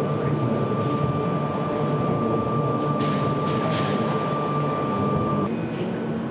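Steady machinery hum and noise of equipment running in a large hall, with a constant high whine that stops about five and a half seconds in, when a lower steady tone takes over.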